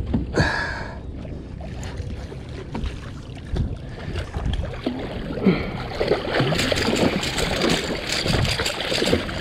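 Water splashing and sloshing against a small boat, with wind noise on the microphone. The splashing grows busier and louder from about five and a half seconds in.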